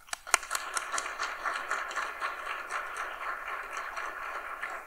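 Audience applauding: many hands clapping at once, steady throughout.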